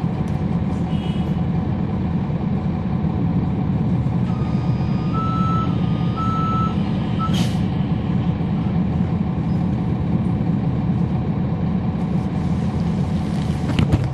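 Cummins ISL9 inline-six diesel engine of a NABI transit bus running steadily, heard from on board. About four seconds in, a high whistle steps back and forth between two close pitches for about three seconds, followed by a short sharp hiss of air from the bus's air system.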